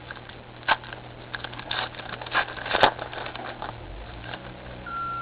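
Rustling and crinkling of a foil trading-card pack being torn open and the cards handled, a string of short scrapes and clicks with one sharp click about three seconds in. A steady high beep starts just before the end.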